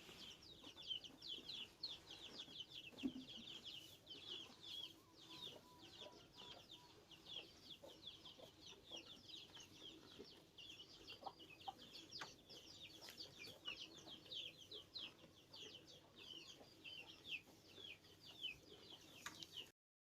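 Chicks peeping continuously: many short, high, falling calls overlapping several times a second, with a few lower notes scattered among them.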